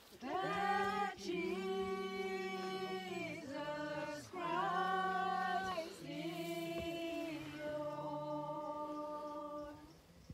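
A group of voices singing a slow hymn unaccompanied, long held notes in short phrases, stopping about a second before the end.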